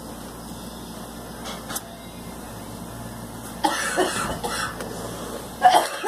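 A woman coughing from cigarette smoke: a run of harsh coughs starting a little past halfway, the loudest near the end.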